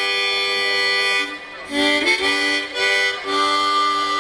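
Harmonica playing held chords in short phrases, with a brief break about one and a half seconds in.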